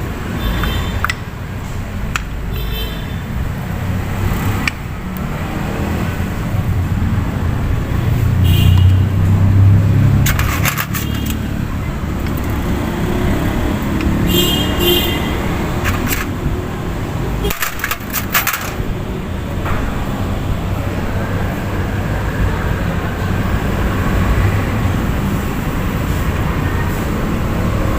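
Steady rumble of road traffic, with scattered sharp metallic clicks and clinks as clutch parts and tools are handled, a few of them ringing briefly.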